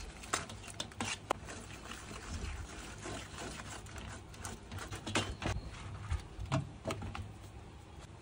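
Metal spoon stirring thick flour-and-water batter in an aluminium pot: wet stirring with scattered sharp clicks of the spoon against the pot's side.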